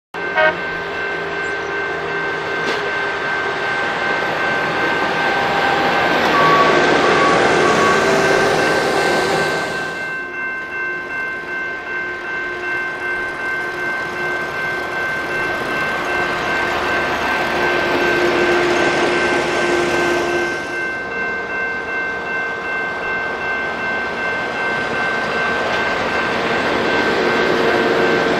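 Railway tie-gang track-maintenance machines rolling past on the rails, their engines and wheels running, with a grade-crossing warning bell ringing steadily the whole time. The machine noise swells twice, once about a quarter of the way through and again about two-thirds of the way through, as machines go by.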